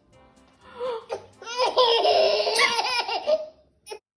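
A baby laughing hard in repeated high-pitched bursts, from about a second and a half in until shortly before the end, set off by a pretend sneeze or hiccup. A short click comes just before the end.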